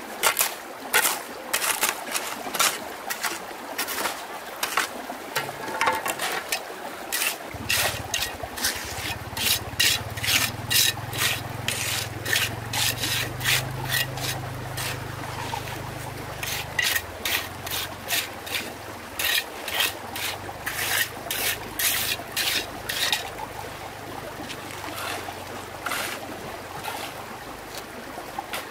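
Wood being scraped by hand in short, quick, irregular strokes, about two or three a second. A low steady hum joins about seven seconds in and fades somewhat after the middle.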